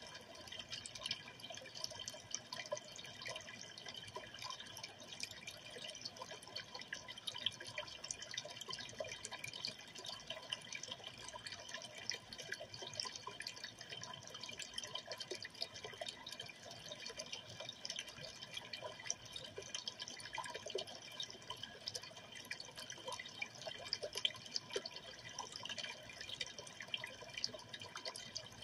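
Aquarium water trickling and dripping steadily, a continuous patter of many small splashes.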